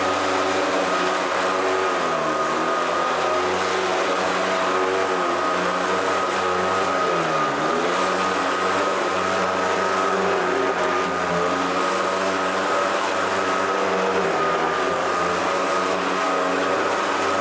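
Hoover Decade 800 Heavy Duty upright vacuum cleaner running: a steady motor drone with a high whine. Its pitch dips briefly and comes back twice, most deeply about seven seconds in. The owner notices some vibration in the run and is not sure whether it comes from the brush roll or the fan.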